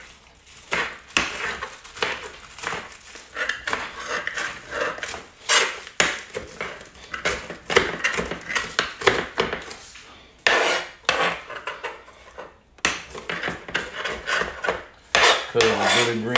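Chef's knife chopping green onions directly on a tile countertop: a run of quick, uneven chops, each a sharp knock of the blade on the hard surface.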